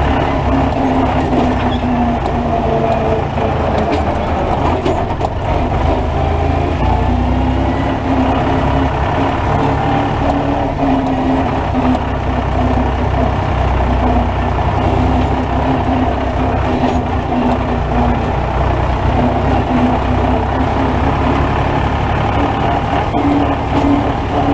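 International Harvester IH 533 tractor's diesel engine running steadily as the tractor drives along, heard from the driver's seat in the cab. The engine note shifts a little in pitch now and then.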